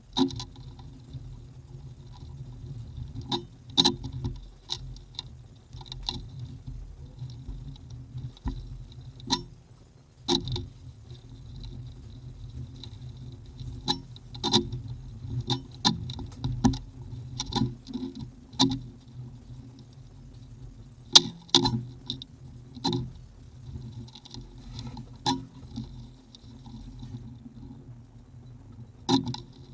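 Irregular light clicks and knocks of tools and small parts being handled during repair work, over a steady low hum.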